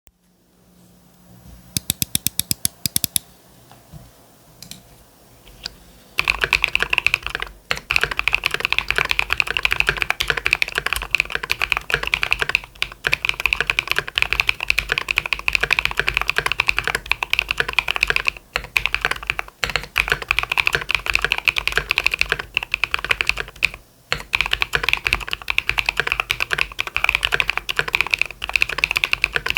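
Mechanical keyboard with NEO White linear switches (53 g actuation) being typed on: a quick run of evenly spaced key presses about two seconds in, then fast continuous typing from about six seconds on, broken by a few brief pauses.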